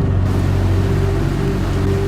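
Low, droning soundtrack music with a loud, even hissing rush laid over it, which starts just after the beginning and cuts off abruptly at the end.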